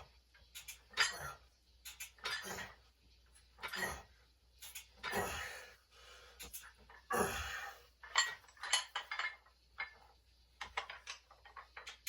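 Gym weights clinking and clanking, metal on metal, in irregular sharp clicks with short noisy bursts between them.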